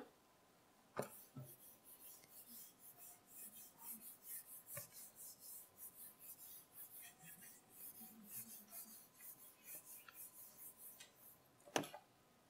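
Whiteboard eraser wiping a whiteboard in quick back-and-forth strokes, a soft hiss with each stroke. A sharp knock comes about a second in, and a louder one near the end.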